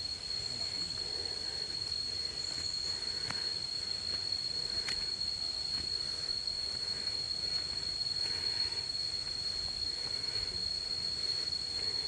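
Insects keeping up a steady, high-pitched drone on one pitch.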